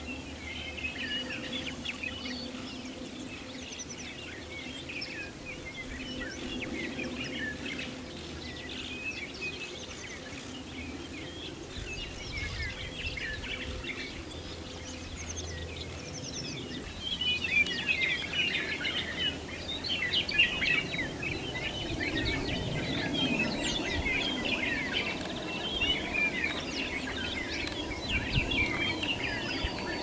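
A flock of small birds chirping and twittering, many short overlapping calls that grow busier in the second half, over a low background rumble and a faint steady hum.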